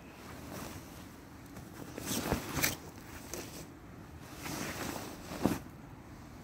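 Nylon jackets and clothing rustling as they are handled close to the microphone, in two louder bouts: one about two seconds in and one near the end, each with a sharp crinkle.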